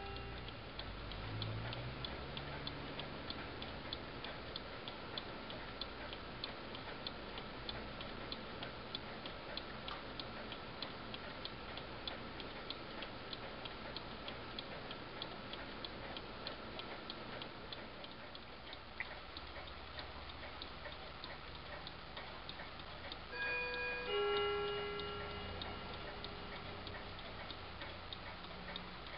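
Small Ansonia 8-day mantel clock movement ticking through its strip recoil escapement, an even run of rapid, sharp ticks. About five seconds before the end, a few steady tones briefly sound over the ticking.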